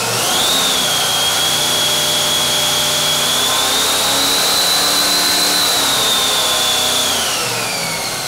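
Supercharged methanol 540-cubic-inch big-block Chevy V8 running on an engine dyno, its 8-71 Roots blower giving a loud high whine over the engine note. The engine holds a steady speed, rising slightly midway, then eases off after about seven seconds, the whine falling in pitch.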